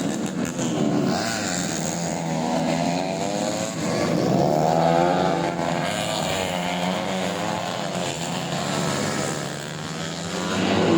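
Tuned 125 cc four-stroke underbone race motorcycle engines running hard, their pitch wavering up and down, with a brief drop and then a rise in revs near the end.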